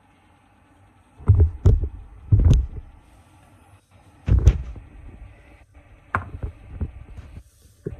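Handling noise: a handful of dull, bass-heavy thumps and knocks, starting about a second in and spaced roughly a second apart, as a ceramic serving bowl of soup is lifted off a wok and carried to the counter.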